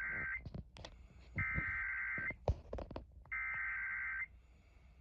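Emergency Alert System SAME header data bursts: buzzy, warbling digital tones in one-second bursts. One burst ends just after the start, then two more follow about two seconds apart, with a few faint clicks between them.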